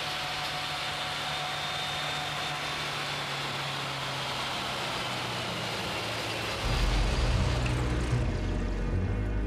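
Engine of a tracked snow vehicle (a snowtrack) running steadily. About two-thirds of the way in, low music comes in over it and becomes the loudest sound.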